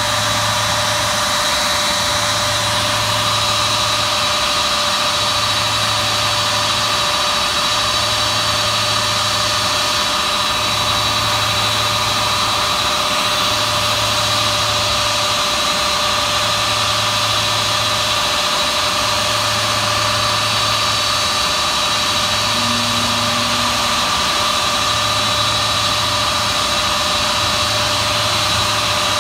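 A C-5 Galaxy's General Electric TF39 turbofan engines (engines 1 and 2) running at idle: a steady, high jet whine over a rushing hiss, with a low throb that swells and fades about every three seconds.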